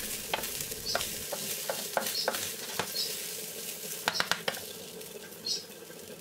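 Rice toasting in olive oil in a stainless steel frying pan, sizzling steadily as it is stirred with a spoon. Scattered sharp clicks of the spoon against the pan come through the first four seconds or so, then the stirring stops and the sizzle eases.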